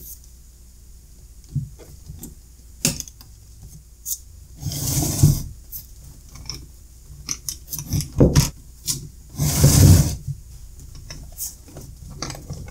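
Plastic cases of two 12 V sealed lead-acid batteries scraping and knocking as they are pressed and slid together to reassemble a UPS battery pack. There are scattered sharp clicks and two longer scrapes, about five and ten seconds in.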